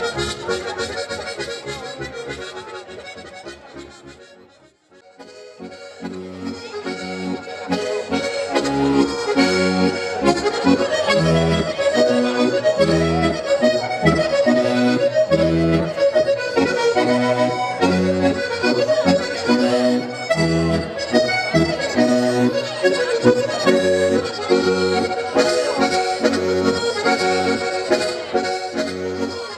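Accordion playing a traditional tune over a regular bass-and-chord beat. The first strain fades away about four seconds in, and a new tune starts about two seconds later.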